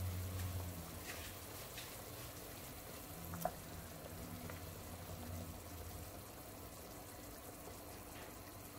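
Pork rib and white radish soup simmering in a pot, with a few sharp clicks and soft plops as cubes of white radish are put into the broth by hand. The loudest click comes about three and a half seconds in. A low hum fades out about six seconds in.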